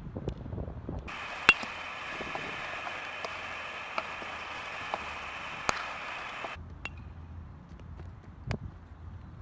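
Sharp knocks of a baseball during infield fielding drills, ball meeting leather glove or bat, about four times, the loudest about a second and a half in. A steady outdoor hiss runs through the middle, with a low rumble at the start and end.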